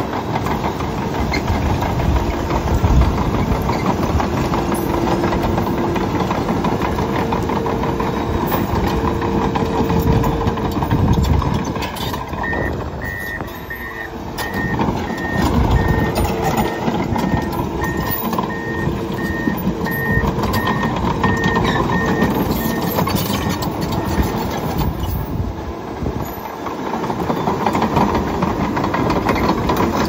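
Komatsu D61PX-24 bulldozer's six-cylinder diesel engine running under load as the crawler works broken concrete and brick rubble. From about twelve seconds in, its backup alarm beeps about once a second for some ten seconds while it reverses.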